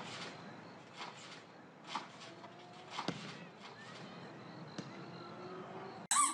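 Faint thumps and knocks, about one a second, over a steady background hiss. Just before the end, a sudden loud squeaky sound cuts in.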